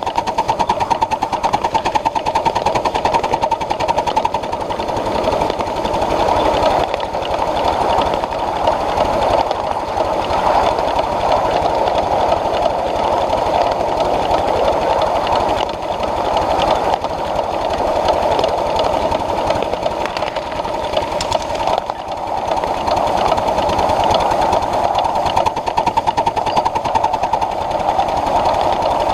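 Ride-on live-steam Pacific (4-6-2) scale locomotive running under way, heard from on board: a rapid, steady mechanical clatter of the engine and its wheels on the rails.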